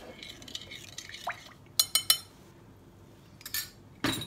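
Sharp clinks and knocks of a glass mixing bowl and dishes on a granite countertop: three quick clinks about two seconds in, another a little later, and a louder knock near the end.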